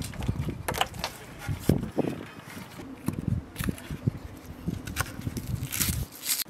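Dry onion skins crackling and rustling as they are peeled off with a knife and fingers. Light knocks come from onions and the knife on the wooden cutting board, with a longer papery tearing sound near the end.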